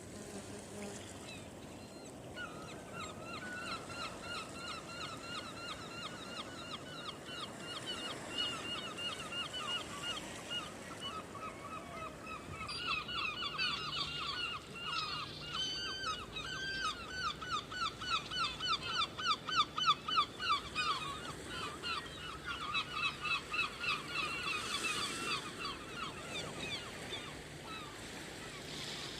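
A gull calling in a long, rapid series of short repeated notes, several a second, that starts a few seconds in and is loudest about two-thirds of the way through, over the low wash of the sea.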